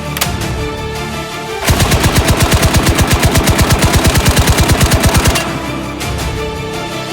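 A long burst of rapid automatic fire from a suppressed machine gun, starting a couple of seconds in and lasting nearly four seconds, over background music.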